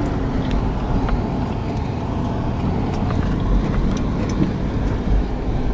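Four-wheel-drive truck driving on a sandy dirt track: a steady low rumble of engine and road noise, with a few small clicks and rattles through it.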